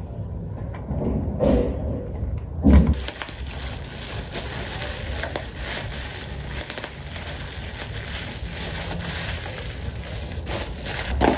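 Bubble wrap being squeezed and popped between the fingers, with plastic packaging crinkling: a long run of small crackling pops. Two dull thumps come in the first few seconds, the second the loudest sound.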